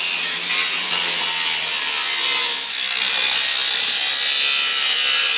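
A handheld power saw cutting through an old truck exhaust pipe to take off the slide-on exhaust tips. The cut makes a steady, loud noise that does not break.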